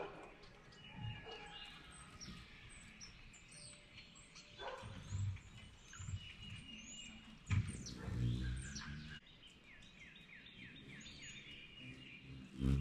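Backyard birds chirping with many short, high, falling calls, including a quick run of repeated notes later on. A low hum of hummingbird wings swells now and then as the hummingbird hovers close at the feeder, loudest as it flies back in at the end.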